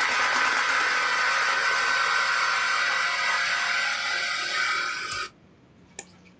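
Recorded NASCAR intro: race car engine noise with music, running steadily and then cutting off suddenly about five seconds in.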